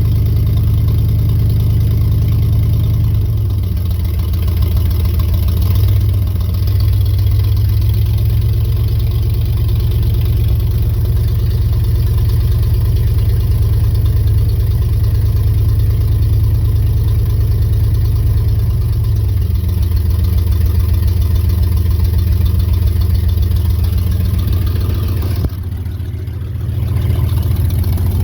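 A Ford F100's small-block 351 Windsor V8 idling steadily, its note shifting a few times and dipping briefly near the end.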